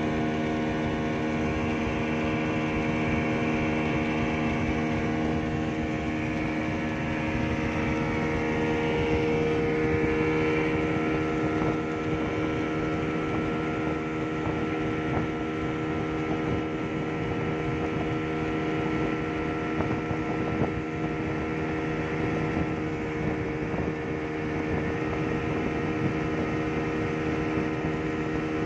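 Yamaha 200 hp outboard motor running steadily at speed while driving a fully loaded passenger speedboat, with wind and rushing water behind it.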